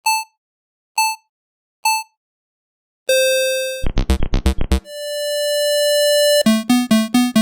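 Synthesized square-wave tones: three short beeps about a second apart, then a held tone, a fast run of low buzzy pulses, a second held tone, and a quick string of repeated low notes near the end.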